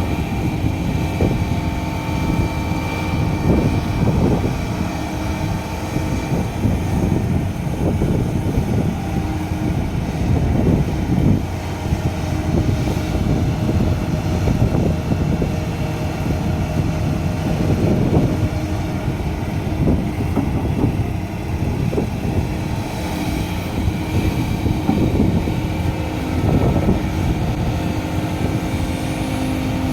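Heavy diesel earthmoving machinery, a Kobelco SK520 excavator and a Komatsu HD465 dump truck, running continuously. Loudness swells and eases irregularly as the machines work, with a few short knocks.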